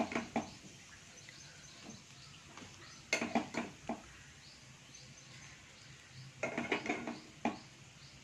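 A spoon scraping and clinking against the pan as cooked rice is stirred into the fried carrot mixture, in three short bouts of several strokes each: at the start, about three seconds in and about six and a half seconds in.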